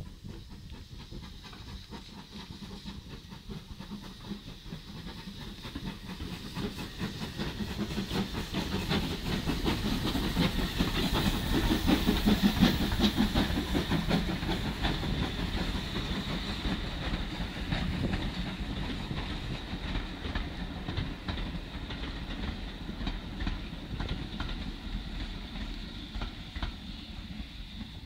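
Steam-hauled passenger train passing close: locomotive exhaust and steam hiss build to a peak about twelve seconds in, then the coaches' wheels clatter over the rail joints and fade as the train draws away.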